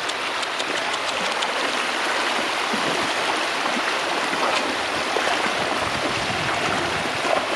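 Floodwater running over a road: a steady rushing of flowing water.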